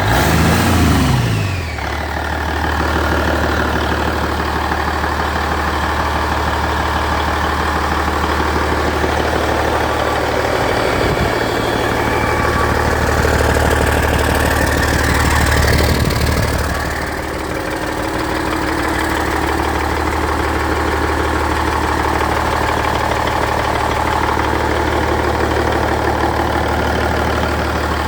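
1998 Cummins N14 Celect Plus 14-litre inline-six diesel running on a test run. It is revved briefly right at the start, then settles to a steady run, with a slight rise in speed in the middle that drops back about seventeen seconds in.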